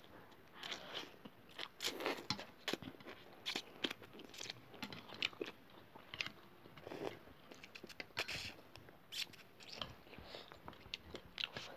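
Noodles being slurped and chewed by two eaters, with a fork and chopsticks clicking and scraping against ceramic bowls: short, irregular slurps and clicks throughout.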